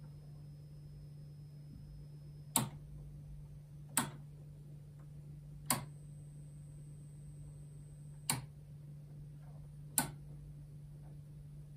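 Five sharp clicks of a signal generator's switch being turned, spaced one and a half to two and a half seconds apart, as the test frequency is stepped, over a steady low electrical hum.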